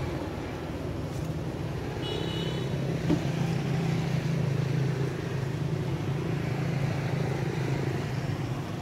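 A motor vehicle's engine drones steadily and low as it passes, swelling in and fading out. Early on there is a brief high squeak, and a single click follows about a second later.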